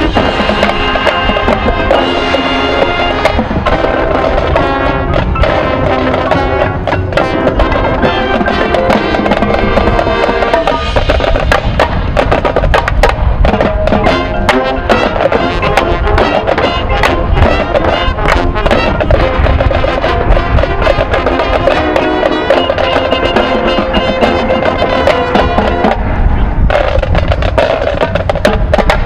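Marching band playing: brass with drumline and front-ensemble percussion. Through the middle the drums and percussion carry the music, and the full brass comes back in strongly near the end.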